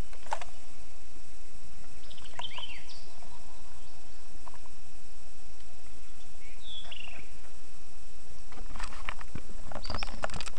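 Creek-side ambience from a kayak: a steady background hiss with a songbird giving two short descending chirps, then a cluster of clicks and knocks near the end, typical of a paddle or gear knocking against the kayak.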